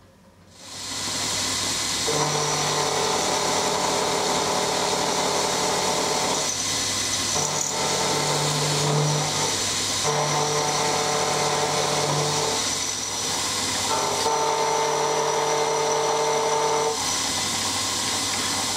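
Milling machine spindle starting up about half a second in, then running steadily. An end mill cuts a mild steel block, and a strong cutting tone rises over the hum in four separate passes.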